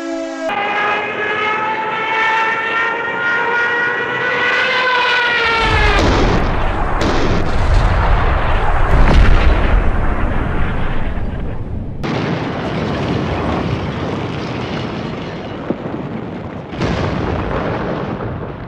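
A pitched wail that rises slowly for about five seconds, then drops away into heavy, rumbling blasts and continuous battle noise of explosions and gunfire, cut off abruptly a few times.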